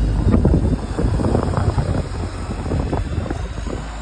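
LiAZ-5292.60 city bus's diesel engine accelerating as the bus pulls away from a stop, a loud low rumble, with wind buffeting the microphone.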